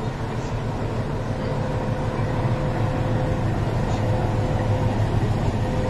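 WDS-6 diesel shunting locomotive's engine running with a steady low drone and a steady whine above it, growing a little louder as its cab comes close.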